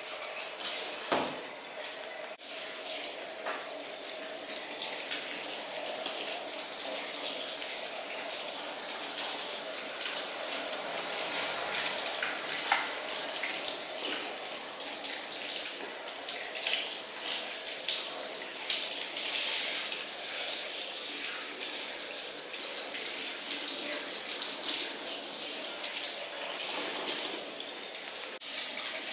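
Handheld shower sprayer running a steady spray of water through a person's hair over a salon wash basin, rinsing out shampoo, with water splashing into the bowl.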